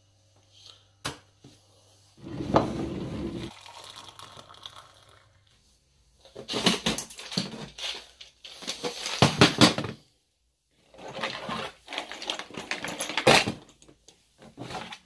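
Handling noise: a single click about a second in and a short low rumble, then two long stretches of rustling and clattering as objects are moved about by hand.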